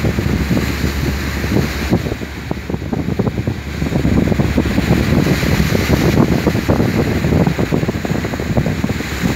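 Strong wind buffeting the microphone over the rush of heavy seas breaking against an oil tanker's hull, louder from about four seconds in.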